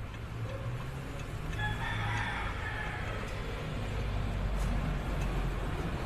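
A rooster crowing once, about a second and a half in, over a low steady rumble.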